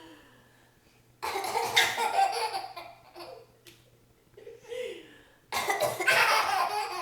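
A woman coughing and a baby laughing hysterically in response, in two loud bouts: one about a second in, and another near the end.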